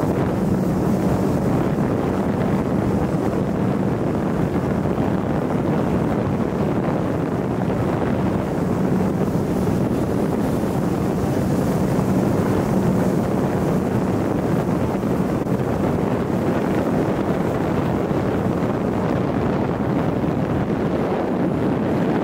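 Wind buffeting the microphone aboard a small boat out on a lake, a steady rushing noise with a faint low hum under it that fades about two-thirds of the way through.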